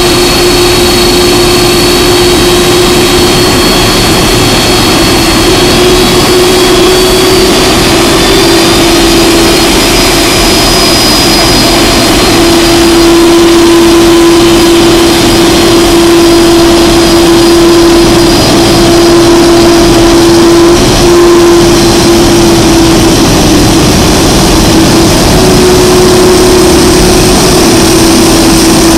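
The four General Electric CF6-80C2B5F turbofans of a Boeing 747-400 freighter running at taxi thrust as the jet taxis past: loud, steady jet noise with a held whining tone.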